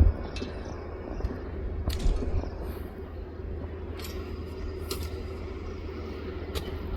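Train running on the tracks: a steady low rumble with a few sharp clicks scattered through it.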